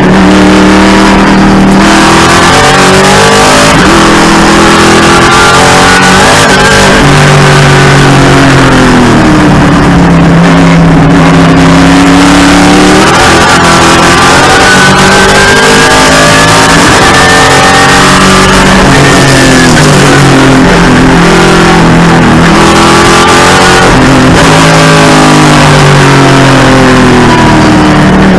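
Trans Am TA2 race car's V8 engine heard from inside the cockpit, loud, its revs climbing through the gears and dropping back again several times over.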